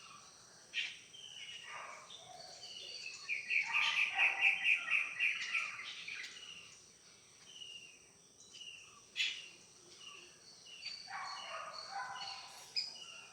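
Several birds calling and chirping, the loudest a rapid run of repeated notes, about eight a second, lasting about two seconds near the middle, over a steady thin high tone.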